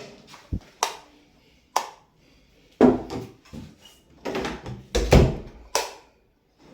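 A string of sharp plastic clicks and knocks, some with a dull thud, from a wall light switch and its cover being snapped into place and handled.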